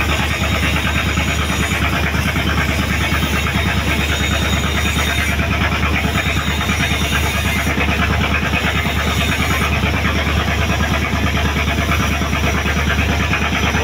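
Fishing boat's engine running steadily under way, heard on board: a constant low hum with a fast, even chugging.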